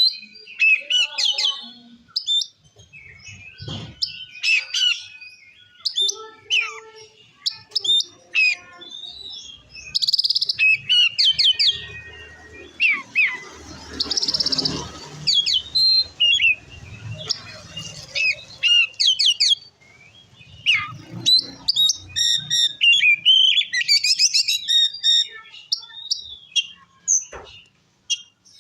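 Oriental magpie-robin (kacer) singing a loud, fast, varied song of whistles, chirps and rattled notes with short pauses, the full-voiced 'ngeplong' singing used to provoke other magpie-robins. Partway through, a soft hiss runs under the song for a few seconds.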